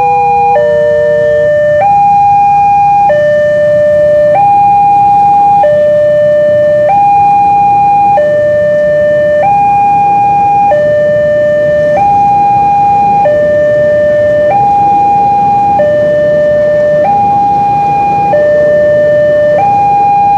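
Railway level-crossing warning alarm sounding a two-tone electronic hi-lo signal, alternating steadily between a higher and a lower tone about every second and a quarter. It warns that a train is passing while the barrier is down.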